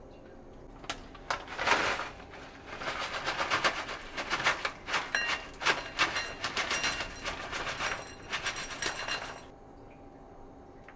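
Granola poured from a plastic bag into a ceramic bowl: the bag crinkling and the granola clusters rattling into the bowl in a long run of crackly bursts that stops about nine and a half seconds in.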